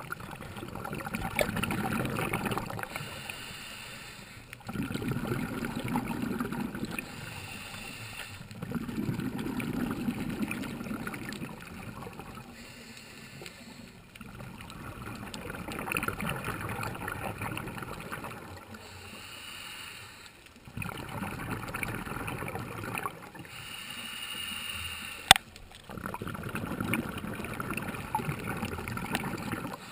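Scuba regulator breathing heard underwater: slow, regular breaths, each a short hissing inhale followed by a longer bubbling exhale, repeating every four or five seconds. A single sharp click sounds about 25 seconds in.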